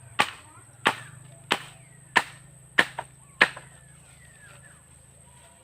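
Six sharp, evenly spaced blows of a hand tool striking something, about three every two seconds, with a lighter knock after the fifth; then they stop.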